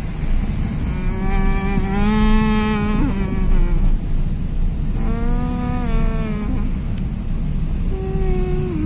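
Steady road and engine rumble inside a moving vehicle. Three long pitched tones of a second or two each sound over it, the last one dropping in pitch near the end.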